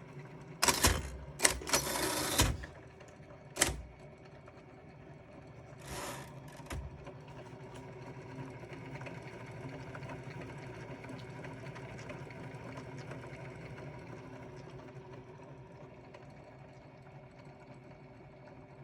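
Underwood Scriptor electric typewriter: a quick run of loud mechanical clacks in the first few seconds and one more about three and a half seconds in, then its electric motor humming steadily.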